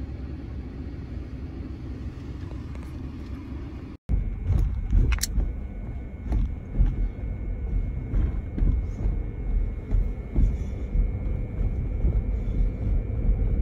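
Road and drivetrain rumble inside a moving Ford Ranger pickup's cabin, with scattered knocks and rattles from a bumpy road. It drops out for a moment about four seconds in and comes back louder and more uneven.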